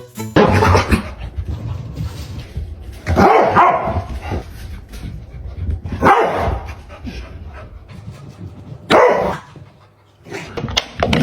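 A dog barking: four loud outbursts about three seconds apart.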